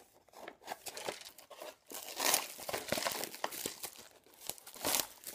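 Plastic shrink-wrap film being torn off a Peyang instant yakisoba container and crumpled by hand: irregular crinkling and crackling, loudest a little over two seconds in and again near the end.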